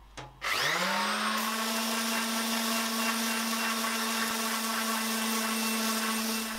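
Ozito random orbital sander switched on with a click, its motor spinning up over about half a second to a steady, high hum as it sands an end-grain wooden board.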